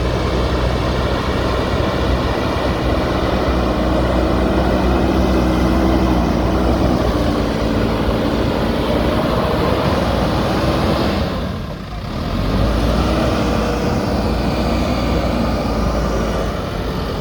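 JCB backhoe loader's diesel engine running steadily as the machine works mud, with a brief drop in level about two-thirds of the way through before it carries on.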